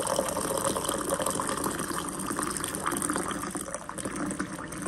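Hot water pumped from an electric hot water pot pouring in a steady stream into a ceramic mug, filling it. The stream thins near the end.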